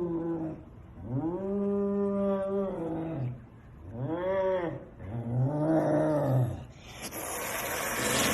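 An animal giving long, drawn-out wailing calls, four in a row with short pauses between them, followed near the end by a loud hiss lasting about a second.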